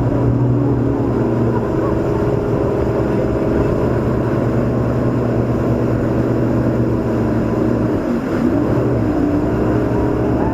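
Tour boat's engines running steadily at speed, with a dip in pitch and level about eight seconds in.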